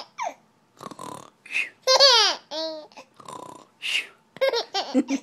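High-pitched laughter in short bursts, alternating with breathy snoring snorts. The loudest burst is a squealing laugh about two seconds in.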